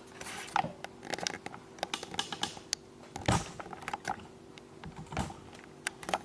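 Scattered small clicks, taps and rustles of cables and packaging being handled, with one louder rustle about three seconds in.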